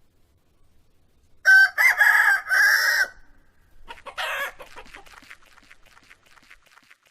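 Rooster crowing once, a cock-a-doodle-doo starting about a second and a half in and lasting about a second and a half, followed by a short squawk and a run of quick clucks that fades away.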